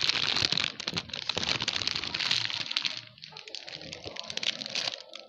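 Plastic food-storage containers being handled: rustling with many sharp plastic clicks and clatters. The rustling is loud for the first three seconds, then drops to quieter scattered clicks.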